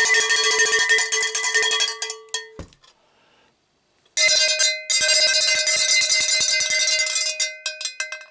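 Cowbell struck rapidly over and over in two runs, with a pause of about a second and a half between them. The second run rings at a higher pitch.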